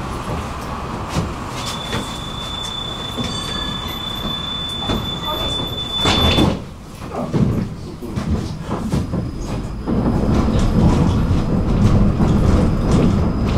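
Tram at a stop: a steady high door-warning beep sounds for about five seconds, the doors shut with a thump as it ends, and a few seconds later the tram moves off, its motors and wheels running louder.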